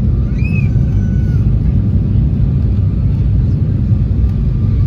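Steady low rumble of cabin noise inside an Embraer E175 airliner descending to land: jet engine and airflow noise heard from a window seat.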